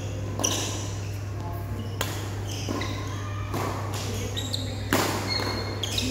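Badminton rackets striking a shuttlecock during a doubles rally: about four sharp hits, a second or more apart, echoing in a large hall over a steady low hum.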